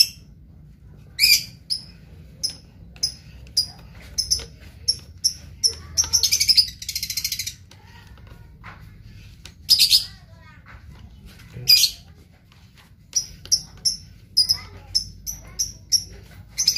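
A small bird chirping repeatedly in short, high notes, broken by a few buzzy trills about a second long.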